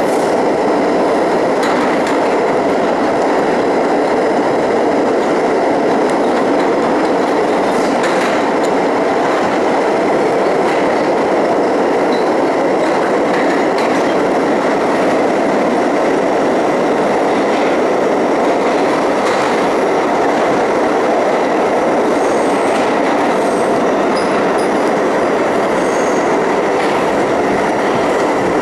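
Budd-built R32 subway train running at speed through a tunnel, heard from inside the front car: a steady, loud rumble of steel wheels on rail with occasional clicks. A few faint high squeaks come in during the last third.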